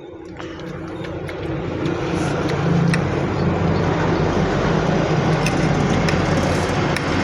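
A road vehicle passing close by: its engine and tyre noise build up over the first couple of seconds, hold, and begin to fade near the end.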